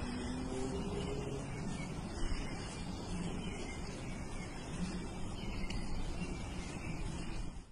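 Steady background hiss of outdoor ambience, even throughout, with no distinct event standing out.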